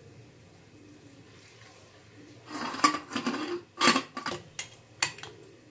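A black pressure cooker being shut: its lid clatters and scrapes against the pot as it goes on, with a few sharp metal clunks as the handles are brought together. It starts after a quiet first couple of seconds, with the loudest knocks about three and four seconds in.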